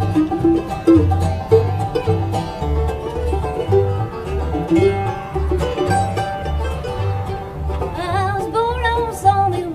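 Bluegrass band playing live, with banjo picking over guitar and an upright bass holding a steady beat of about two notes a second. A higher melodic line with vibrato comes in near the end.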